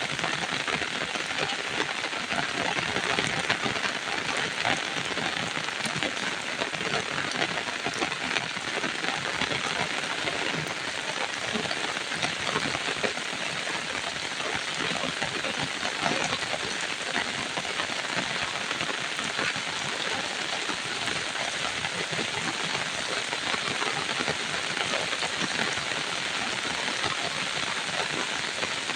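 Steady rain falling and pattering on surfaces, an even hiss of many drops.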